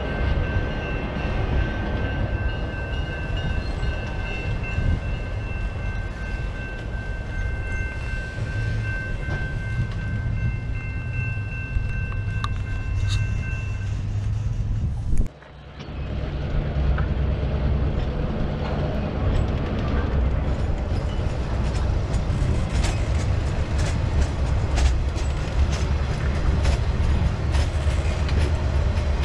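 Tank cars of a freight train rolling past, a steady low rumble with a few thin, steady high-pitched tones over it for the first half. After a brief break about halfway through, the rumble goes on with quick, irregular clicks of the wheels over the rail joints.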